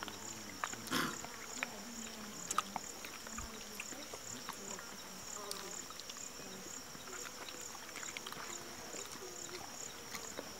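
Steady high-pitched insect chirring that pulses about twice a second, with scattered faint clicks and a brief louder noise about a second in.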